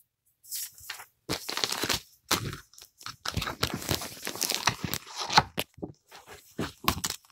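Clear plastic packaging crinkling and paper rustling as a photo book and its inserts are handled, in irregular bursts with brief pauses.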